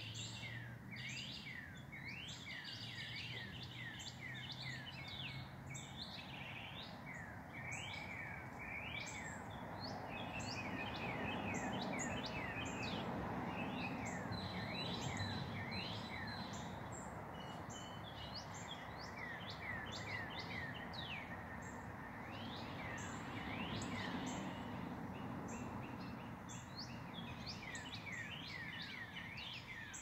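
Many birds chirping at once: a dense run of short, high, downward-sliding chirps. Underneath is a steady background rumble of city noise that swells and fades.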